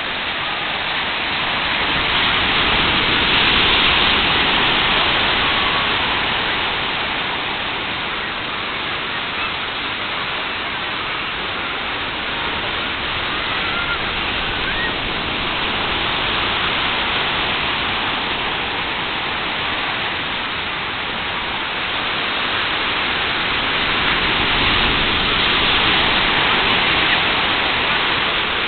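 Rough sea surf breaking over a rock breakwater and the rocky shore: a continuous rushing wash of waves that swells louder about three seconds in and again near the end.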